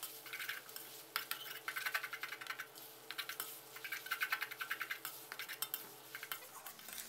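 Metal spatula scraping and clinking against a metal wok as glass noodles are stir-fried with sauce, in quick runs of strokes with short pauses between them.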